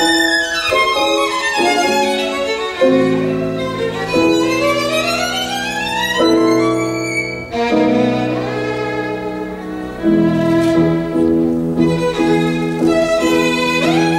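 Instrumental music for a dance number, with long held notes and a melody that glides upward several times in the middle.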